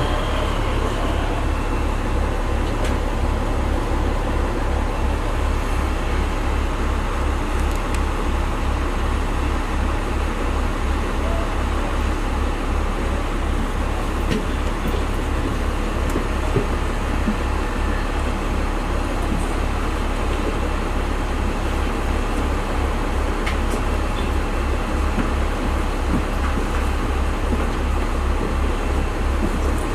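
Diesel railcar engine idling at the platform with a regular low throb, about three beats a second, under a steady wash of background noise.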